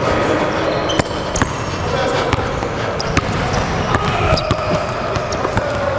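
Basketball dribbled on a hardwood gym floor, with sneakers squeaking in short high chirps as players cut and change direction.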